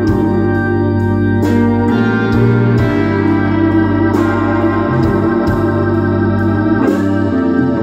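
Live rock band playing: sustained organ-like keyboard chords over electric guitar and regular drum and cymbal hits.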